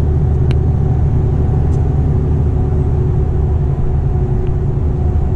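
Steady low rumble of a Mercedes-Benz truck's diesel engine and road noise, heard from inside the cab while cruising at motorway speed, with a faint steady whine over it.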